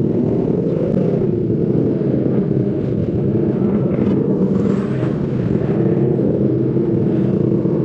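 Motorcycle engine and racing exhaust running steadily at low road speed, a continuous deep drone with small rises and falls in pitch, with other motorcycles of the group running close alongside.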